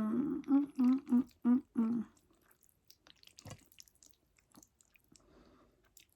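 A woman humming 'mm' through a mouthful of pasta in five or six short, rhythmic pitched hums, then quiet chewing with small wet mouth clicks.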